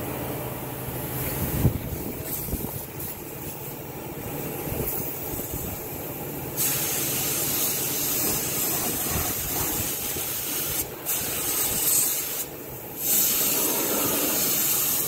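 Compressed-air paint spray gun hissing as it sprays black paint under a bus. The spraying starts about six and a half seconds in and runs in long bursts, with two short breaks where the trigger is let go.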